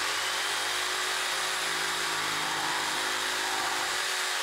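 Electric jigsaw running steadily, its blade cutting through the plastic handle of a toilet brush.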